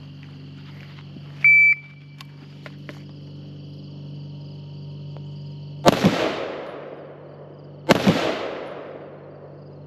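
A shot timer beeps once, briefly and loudly, then an AR-15 rifle fires twice, about two seconds apart, each shot echoing as it fades. A steady low hum lies underneath.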